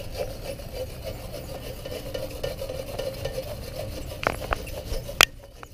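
Brass bristle brush scrubbed back and forth over Llumar self-healing paint protection film, a steady scratchy rasp. A few sharp taps come near the end, the loudest about five seconds in, and then the scrubbing stops.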